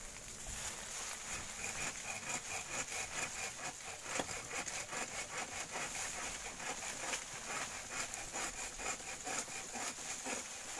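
Hand pruning saw cutting through a bamboo culm: quick, even back-and-forth strokes of the blade through the stem, running without a break.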